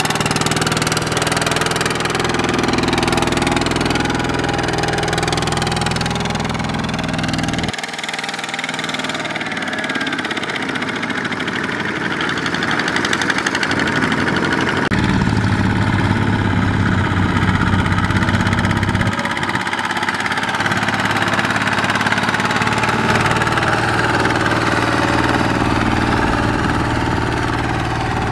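Single-cylinder diesel engine of a two-wheel walking tractor (power tiller) running steadily while it pulls a loaded rice trailer through mud. The engine note changes abruptly twice, about 8 and 15 seconds in.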